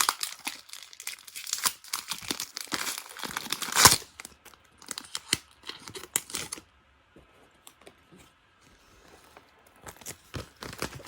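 Foil booster-pack wrapper of a Pokémon trading card pack crinkling and tearing as it is pulled open: dense crackling for about four seconds, loudest at about four seconds in, then sparser crinkles that die away after six and a half seconds, with a few soft handling sounds near the end.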